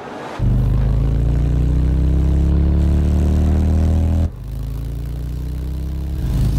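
Harley-Davidson V-twin motorcycle engine accelerating hard, its pitch rising steadily for about four seconds, then cut off abruptly and followed by a lower, steadier engine note.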